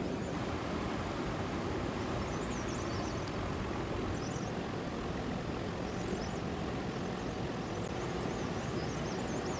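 Steady rushing outdoor background noise, with faint high chirps now and then from about two seconds in.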